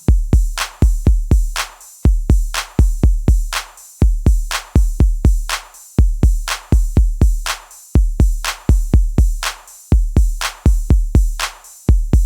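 Background electronic music: a programmed drum beat of deep kick drums and sharp hits, repeating in a steady pattern about every two seconds.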